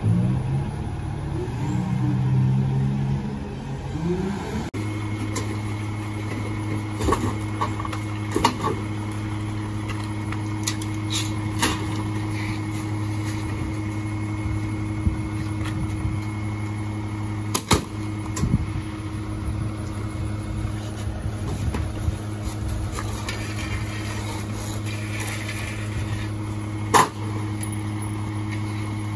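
Loadmaster rear-loader garbage truck's diesel engine rising and falling in pitch for the first few seconds, then running at a steady hum. Over the hum come scattered sharp knocks and clatters of bulk waste, such as wooden boards, being thrown into the rear hopper.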